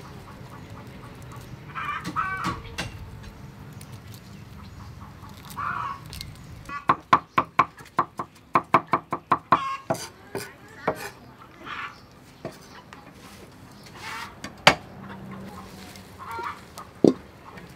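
Knife chopping on a wooden chopping block: a quick run of sharp strokes, about five a second, for some three seconds midway, with a few single knocks later. Chickens cluck now and then.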